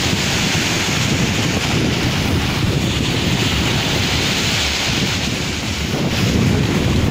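Waves breaking and washing up a shore, with wind buffeting the microphone.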